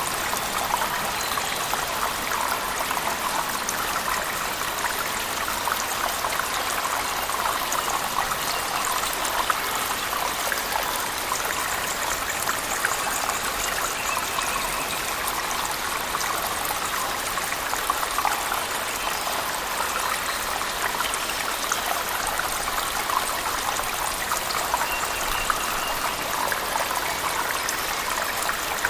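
Steady rush of a waterfall inside a cave, mixed with heavy rain, with many small drops spattering throughout.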